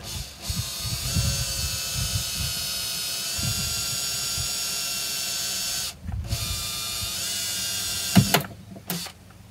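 Cordless drill whining steadily as a small pilot bit drills into the sheet-metal floor pan. The drill stops briefly about six seconds in and starts again. A sharp knock comes about eight seconds in.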